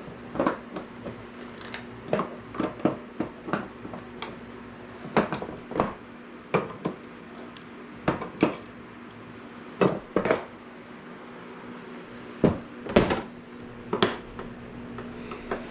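Irregular clicks, taps and clatter of screws and hard plastic and metal parts being handled while a flat-screen TV's stand legs are unscrewed and removed, with a few louder knocks near the end, over a faint steady hum.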